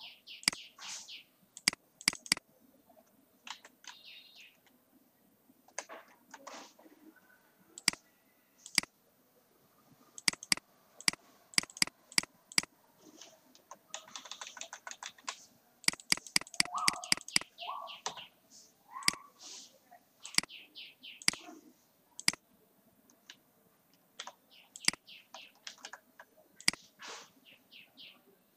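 Computer keyboard typing and mouse clicks, in irregular single clicks and short quick runs, with occasional high chirps in the background.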